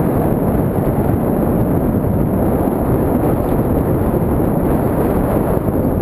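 Steady wind buffeting the microphone of a camera on a moving bicycle, a dense low rumble that doesn't let up.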